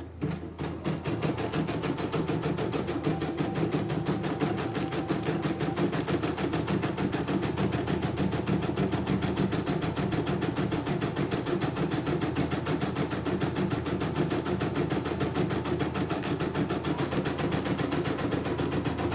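CNY E900 computerised embroidery machine stitching a design, its needle bar driving up and down in a rapid, steady rhythm. It is running a test stitch-out after repair.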